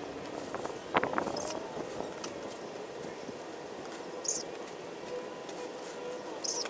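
Short rustles and clicks of hand garden work among shrubs, with two brief crinkly high-pitched rustles in the second half, over a faint steady hum.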